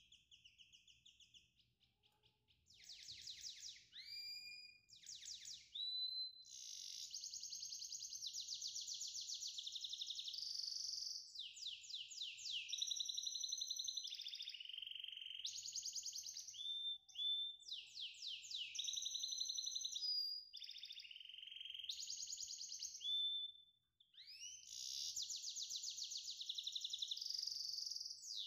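A songbird singing long, rapid, high-pitched trills and warbles, nearly without a break, with a short pause about four seconds before the end.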